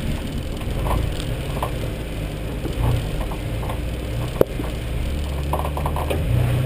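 Four-wheel-drive engine running at low revs while the vehicle crawls over a rocky dirt track, with the body and fittings rattling and clicking over the bumps and one sharp knock about four and a half seconds in.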